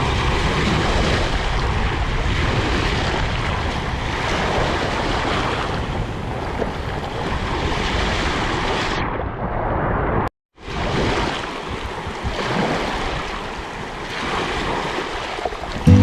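Sea waves breaking and washing on the shore, with wind noise, as a continuous rushing noise. The sound cuts out completely for a split second about ten seconds in, then the surf resumes.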